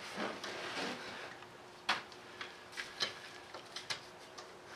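Scattered light clicks and ticks, the sharpest about two seconds in, from a valve spring compressor and small valve keepers being worked out of a Cummins diesel cylinder head.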